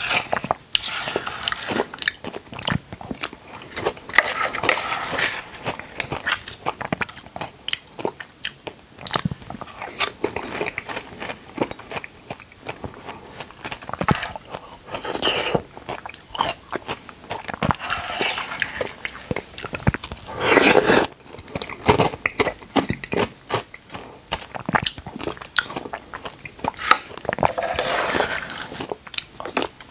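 Close-miked eating sounds: biting and chewing, with many sharp mouth clicks and short crunchy bursts.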